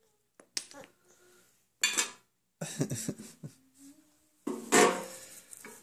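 Wooden Jenga blocks clacking and clattering against each other as a baby handles and drops them, in several separate bursts of knocks.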